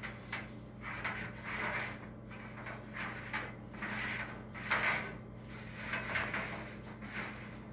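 Sheet-metal clothes-dryer drum and its drive belt being handled and shifted inside the cabinet: a run of irregular scraping and rubbing noises, with a steady low hum underneath.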